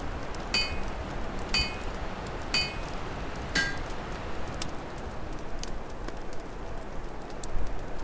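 Open fire crackling under a steady rush of winter wind, which rumbles louder near the end. In the first four seconds, four light ringing clinks come about once a second.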